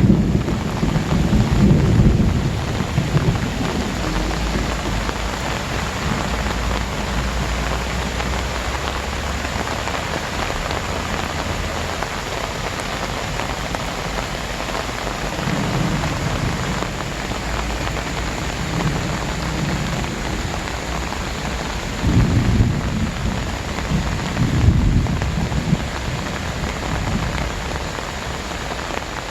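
Very heavy rain pouring steadily. Low rumbles swell up at the start and again about two-thirds of the way through.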